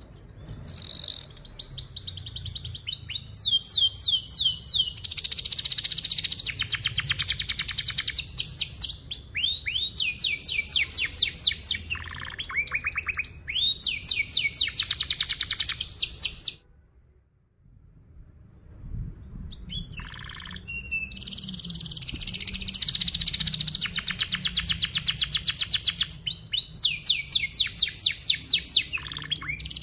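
Yellow domestic canary singing a long song of tight, fast rolled trills: runs of rapidly repeated high notes, one roll after another. Past the middle it stops for about two seconds, then takes up the rolls again.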